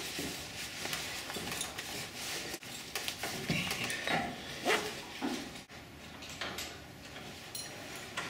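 Rustling and clinking of climbing-harness webbing straps and metal buckles being handled and fastened, with scattered sharp clicks.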